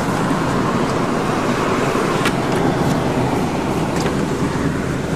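Car driving: steady road and engine noise heard from inside the cabin, with a couple of light clicks.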